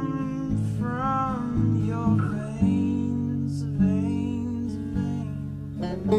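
Background song with acoustic guitar and a singing voice.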